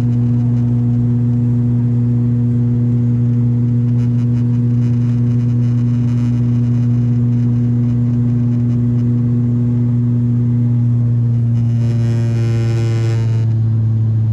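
Steady drone of an ATR 72-600's turboprop engines and propellers, heard from inside the cabin as a constant low hum. About twelve seconds in, a brief higher tone with many overtones sounds for about a second and a half.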